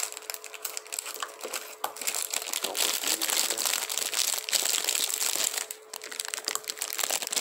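Thin clear plastic candy bag crinkling as it is handled and emptied of gummy candies. It makes a dense crackle with a short lull about a second and a half before the end.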